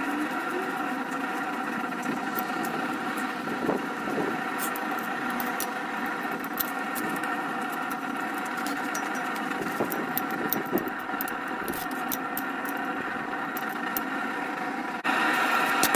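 A steady motor hum made of several even tones, with scattered light crackles and ticks over it; about a second before the end the hum jumps abruptly louder.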